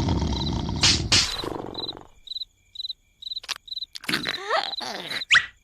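Cartoon snoring, a loud rough rumbling snore that fades out about two seconds in. Then cricket chirps repeat about three times a second as a night-time backdrop, with a few short clicks and sliding vocal noises from a cartoon character near the end.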